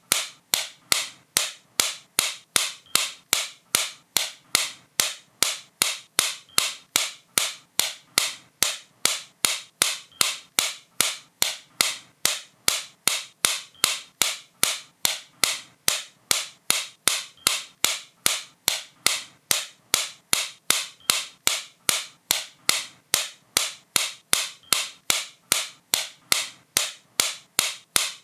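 A sharp, light click repeated at a steady, even pace, about two and a half clicks a second.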